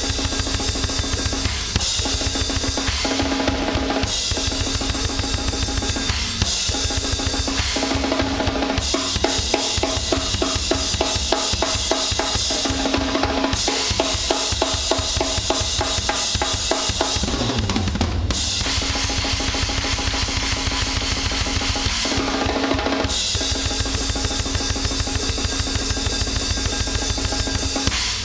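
Acoustic drum kit played fast in a punk and grindcore style: rapid bass drum, snare and cymbals, switching between grooves every few seconds.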